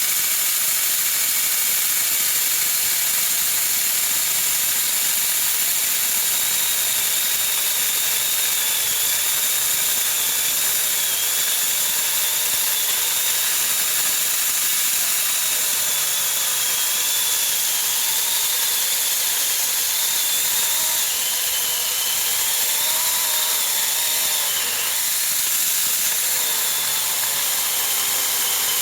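Saker 20-volt cordless mini electric chainsaw running continuously as it cuts through a conifer trunk, a steady buzz with a thin motor whine that wavers in pitch as the load changes.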